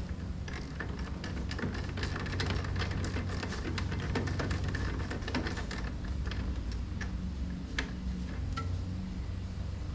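Ratchet wrench with a 10 mm socket clicking in rapid runs as bolts are worked loose, over a steady low hum.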